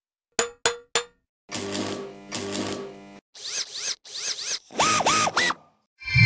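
Logo-animation sound effects of cartoon robots: three quick clicks, a buzzing mechanical whir in two spurts, a run of warbling electronic chirps, then a few sliding robot bleeps. Near the end comes a bright ringing ding over a low thud.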